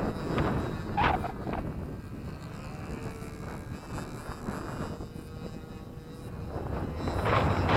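The small 8cc gasoline engine of an RC model airplane droning faintly in flight, half buried under wind buffeting the microphone, with a stronger gust of wind noise near the end.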